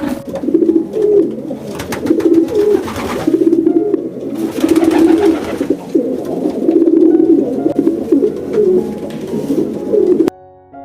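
Birds calling in low, warbling phrases, repeated about once a second and overlapping, cut off abruptly near the end.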